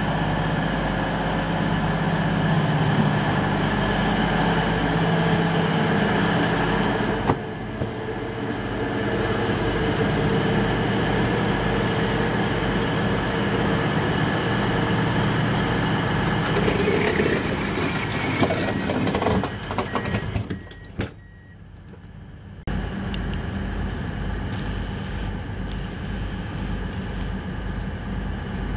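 Underfloor Cummins diesel engines of a Class 222 Meridian multiple unit idling with a steady hum. About two-thirds of the way through, a run of short beeps is followed by the sliding door shutting and the sound dropping sharply, then the engine thrum returns muffled inside the carriage.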